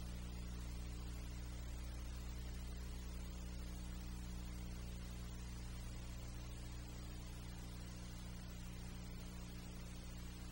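Steady low electrical hum under a constant hiss, with no distinct sound events.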